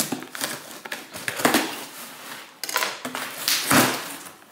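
Knife cutting the packing tape on a cardboard shipping box, then the cardboard flaps being pulled open: several short scraping, rustling bursts, the loudest near the end.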